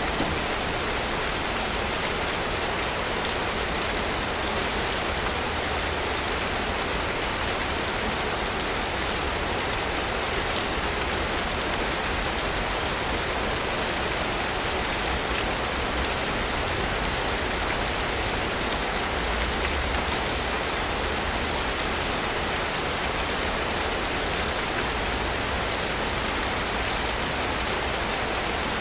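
Steady rain falling, an even, unbroken hiss of drops with no change in strength.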